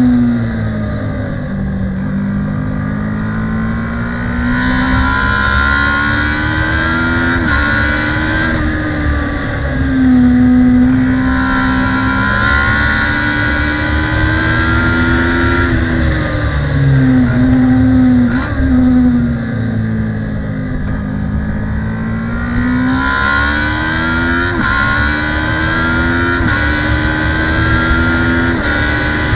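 Kawasaki ER-6 650 cc parallel-twin race bike engine heard onboard at full race pace: the revs climb and drop sharply at each quick upshift, then fall away under braking and climb again out of the corners, with wind rush over the microphone at speed.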